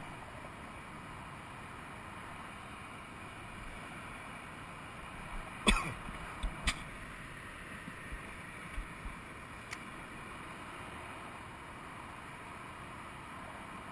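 Steady hum and hiss of distant freeway traffic, with a sharp knock about six seconds in, a second knock a second later and a few faint ticks after.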